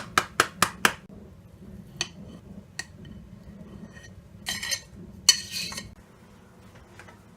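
Kitchen utensils and dishes clattering: a quick run of sharp knocks in the first second, a couple of single clinks, then two short clattering bursts about four and a half and five and a half seconds in.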